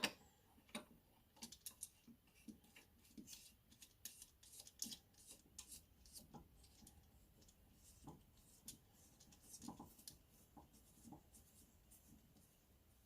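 Faint, irregular small metal clicks and scrapes of hand work with bolts and washers, a couple a second, otherwise near silence.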